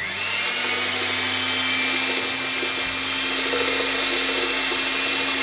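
Electric hand mixer spinning up and then running steadily, its beaters whisking cake batter in a plastic bowl.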